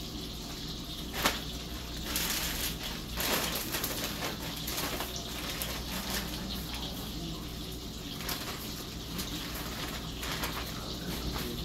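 Plastic bag rustling and crinkling in the hands in irregular bursts, over a steady hiss of a steak searing in a cast-iron skillet.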